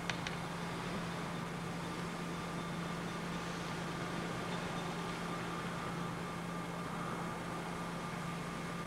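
Steady low hum with an even hiss and faint high tones, unchanging throughout, with two small clicks right at the start.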